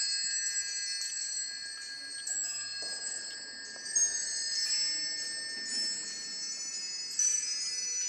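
The small bells of the Peacock Clock automaton ringing: many overlapping high tinkling chimes that ring on, with fresh strikes about four seconds in and again near seven seconds.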